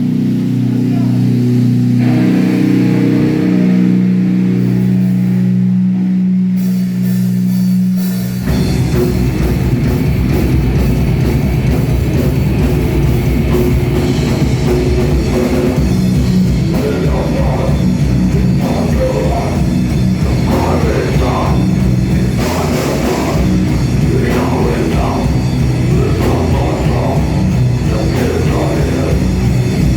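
Death metal band playing: a distorted guitar alone on low held notes, then about eight seconds in the drums and bass come in hard and fast under the riff.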